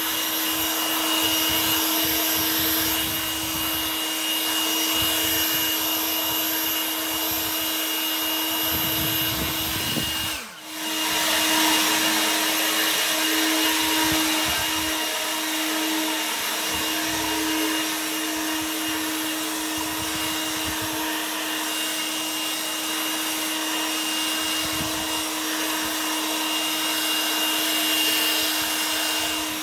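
Ego LB7654 battery leaf blower running: a steady rush of air with a constant fan whine. The sound drops out briefly about ten seconds in and comes straight back.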